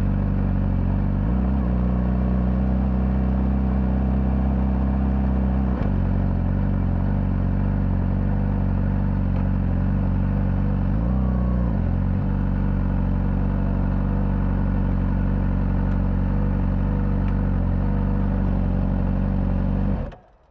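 Honda CBR600RR's inline-four engine, stock exhaust, running steadily on the move. Its pitch steps up about a second in, changes suddenly near six seconds, and dips and rises again around eleven to twelve seconds; the sound cuts off just before the end.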